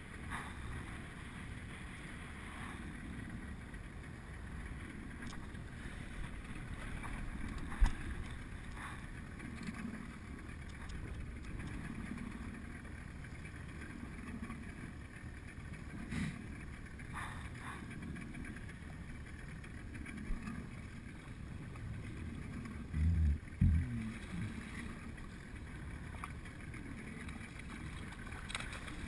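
Wind buffeting the microphone and water sloshing against a small open boat, as a steady noise, with a sharp knock about eight seconds in and a couple of low thumps a little past twenty seconds.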